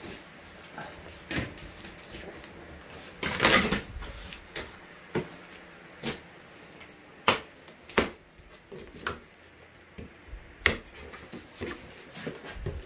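Cardboard box and packaging being handled during unboxing: scattered knocks and clicks, with a louder rustling scrape about three and a half seconds in and a few sharp knocks later.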